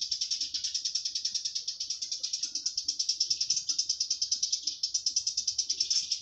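Cicadas singing: a steady, high-pitched buzz that pulses rapidly, many times a second.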